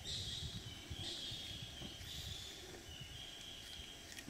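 Repeated high-pitched animal calls, about one a second, each a short hiss that settles into a steady thin tone, over a low rumble. A single sharp click comes near the end.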